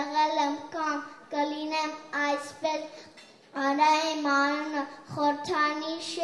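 A child singing solo, phrases of held notes with short breaks between them.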